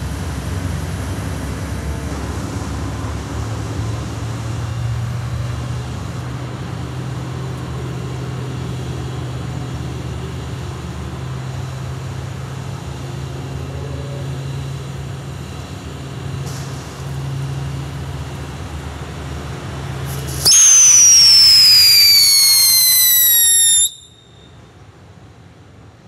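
Smoke firework tube burning with a steady rushing noise as it pours out coloured smoke. About twenty seconds in, a loud, shrill whistle starts and slides down in pitch for about three seconds, then cuts off suddenly.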